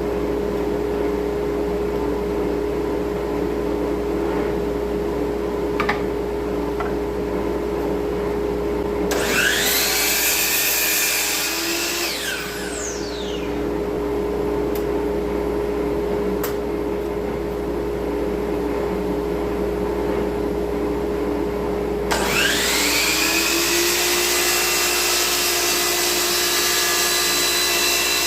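An electric power saw cutting wood sides for small boxes. Its motor spins up with a rising whine about nine seconds in and winds down a few seconds later, then starts again near the end and keeps running. A steady motor drone with a constant hum runs underneath throughout.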